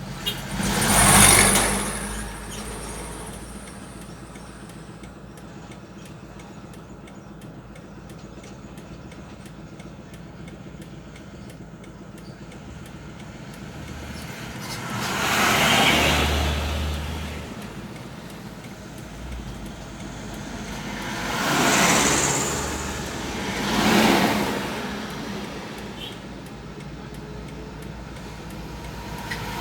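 Vehicles passing on a highway: four pass close by, one about a second in, one midway and two a couple of seconds apart later on. Each rises and fades away over a steady low engine hum.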